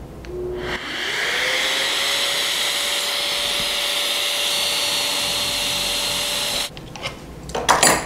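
A drill boring into plywood through a drilling jig that has a dust extractor hose connected, giving a steady airy rush with a motor tone that rises as it spins up just under a second in. It cuts off suddenly about a second before the end, followed by a few clicks and knocks.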